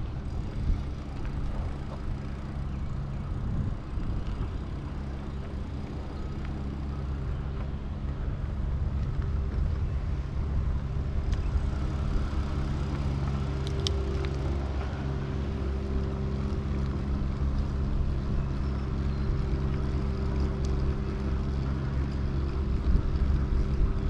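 Steady rumble of wind and road noise while travelling along a road, with a low even hum underneath.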